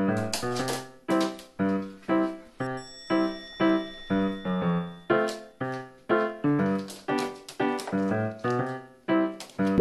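Background music: a steady melody of struck, pitched notes, each fading out, about two a second.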